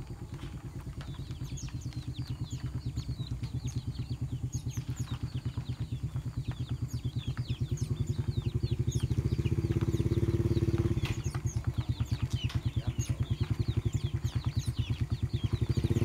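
A small engine running with an even putter, growing louder over the first ten seconds or so. Small birds chirp rapidly over it.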